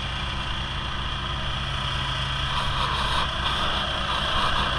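Engine-driven dewatering pump running steadily, pulling water through its large suction hose; the engine sound grows louder and brighter from about halfway in.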